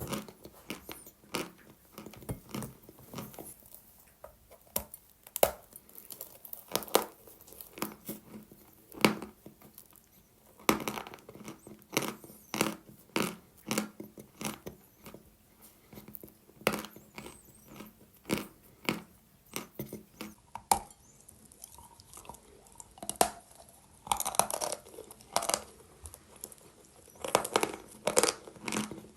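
Dry Sevryukovo chalk being bitten and chewed close to the microphone: a string of sharp, crisp crunches, one every second or so, coming thicker near the end.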